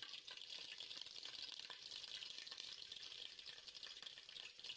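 Curry leaves and whole spices frying in hot oil in a clay pot: a faint, steady crackling sizzle, with a few light clicks of a metal spoon stirring.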